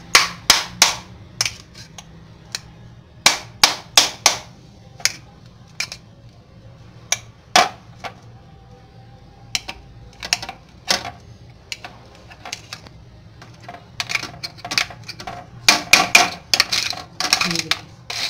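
A hardened sheet of jaggery brittle (gur gachak) being struck and cracked apart in a glass bowl: a series of sharp cracks and clinks, scattered at first, then coming thick and fast in the last few seconds as the broken pieces clatter in the bowl. The crisp cracking is the sign that the brittle has set hard and crunchy.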